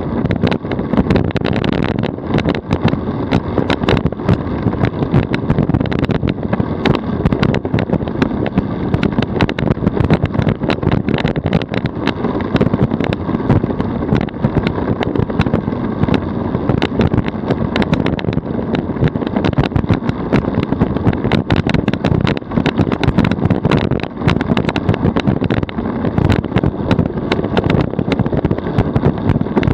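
DF velomobile rolling at about 40 km/h on asphalt: steady road rumble with frequent small clicks and rattles throughout.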